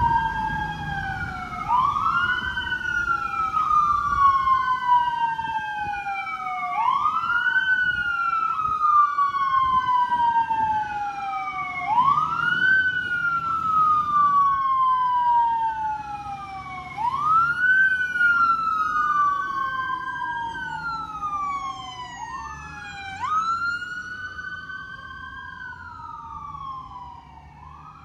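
Fire truck siren wailing, each cycle a quick rise followed by a long slow fall, about every five seconds, over a low engine and road rumble. It fades near the end as the truck moves off.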